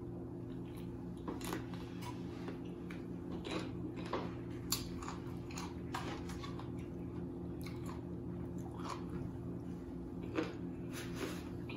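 A person chewing and biting food close to the microphone: irregular short mouth clicks and smacks. A steady low hum runs underneath.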